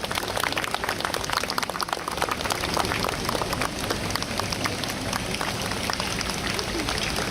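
Crowd applause, many hands clapping, thinning out after about three seconds.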